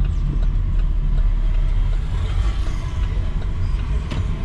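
Car driving along a town street, heard from inside the cabin: a steady low rumble of engine and road noise, with one sharp click about four seconds in.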